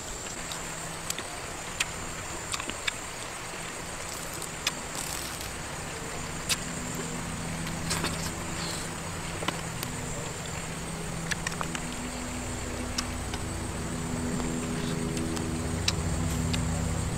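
Short, sharp mouth clicks and smacks of someone chewing and sucking meat off cooked snake pieces. They are scattered over a steady low drone, which gains more held tones in its second half.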